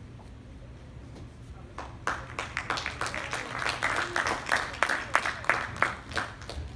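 Audience applauding in an auditorium, starting about two seconds in and dying away near the end.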